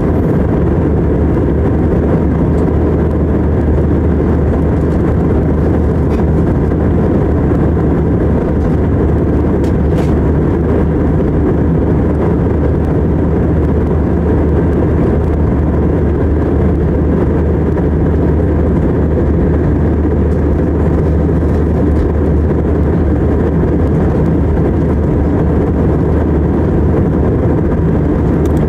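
Jet airliner cabin noise in cruise: an even, deep drone of engines and rushing airflow heard from inside the passenger cabin.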